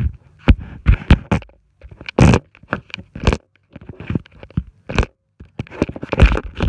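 Camera handling noise: the camera is being picked up and moved about, with irregular knocks, scrapes and rustles against its microphone.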